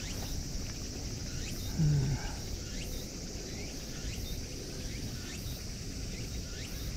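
Outdoor ambience of insects: a steady high drone with short rising chirps repeating every half-second to a second over a low rumble. A brief low sound about two seconds in is the loudest thing.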